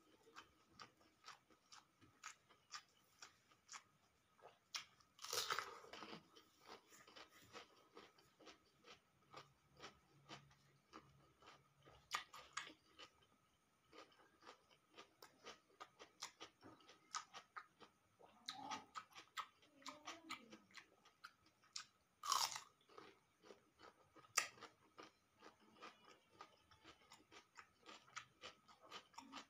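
Close-up chewing and crunching of omelette and raw vegetables such as cucumber, with many small wet mouth clicks and a few louder crunches about five, twelve and twenty-two seconds in.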